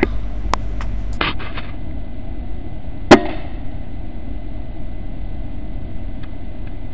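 One sharp crack of an Air Arms S510 PCP air rifle firing about three seconds in, with a brief ring after it. A few lighter clicks come before it, and a low steady hum runs underneath.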